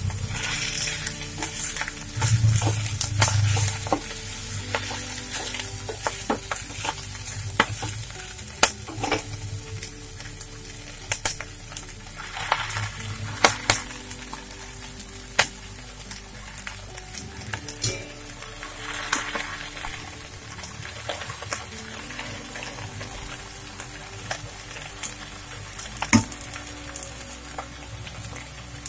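Freshly washed bathua greens sizzling steadily in hot mustard oil in a kadhai. A wooden spatula tosses them and now and then clicks and scrapes against the pan.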